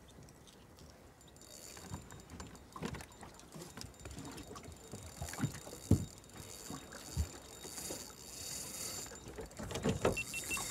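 Knocks and thumps in a small aluminium boat as a fish is handled, with two louder thumps around the middle. A steady high buzz starts about a second in and stops near the end.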